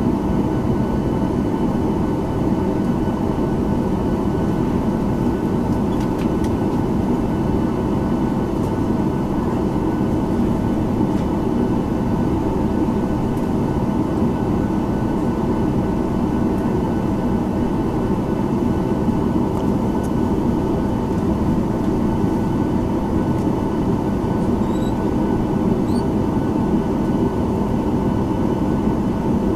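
Steady hum and rumble inside the cabin of a Boeing 737-900ER on the ground, with a few faint steady high tones over it.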